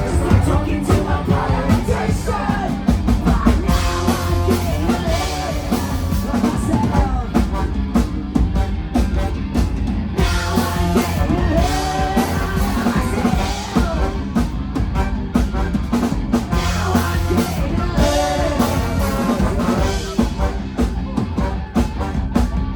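Live band playing a loud rock song with a drum kit and a singer.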